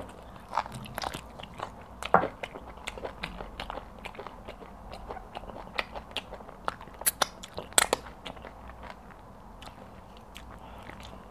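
A person biting and chewing a piece of cow leg meat close to a clip-on microphone: irregular wet clicks and crunches, with two sharper clicks a little after seven seconds in and just before eight.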